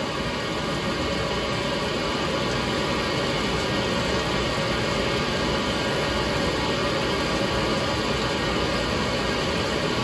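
2007 Whirlpool washing machine refilling its tub with water for the next stage of the permanent press cycle, a steady rushing of water.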